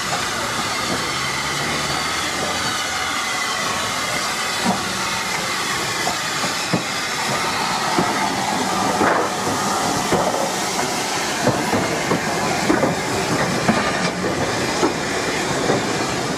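Southern Railway U class 2-6-0 steam locomotive No. 1638 running slowly past at close quarters, with a steady hiss of leaking steam. Irregular clanks and knocks from its wheels and motion on the rails come in about a third of the way through and grow more frequent in the second half as the engine and tender pass.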